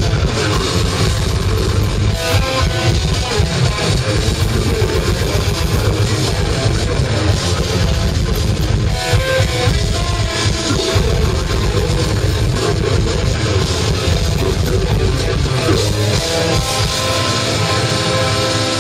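Technical death metal band playing live through a PA: distorted electric guitars, bass and fast drumming, with harsh vocals. About seventeen seconds in the drums drop out and sustained guitar notes ring on.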